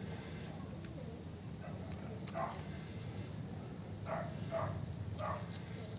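A dog barking four short times over a steady high chirring of insects.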